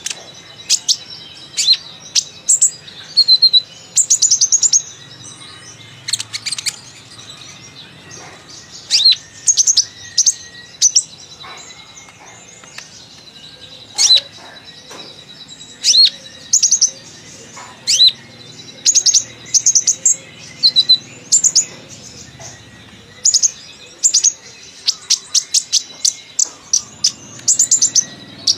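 Kolibri ninja sunbird singing a busy, chattering song of short high chirps and quick trills, in bursts every second or two. A faint steady high tone runs underneath.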